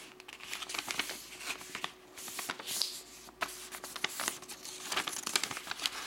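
A sheet of white letter-size printer paper being folded over by hand and creased, with rustling and short irregular crackles of the paper.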